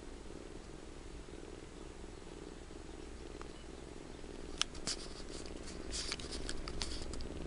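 Kitten purring steadily, a low pulsing drone. About halfway through, light clicks and rustling join in, the sharpest one about four and a half seconds in.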